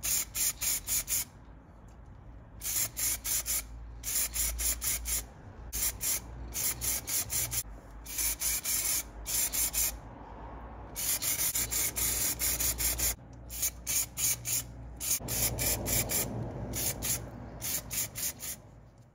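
Spray paint hissing in groups of short, rapid pulses separated by brief pauses, over a low steady hum.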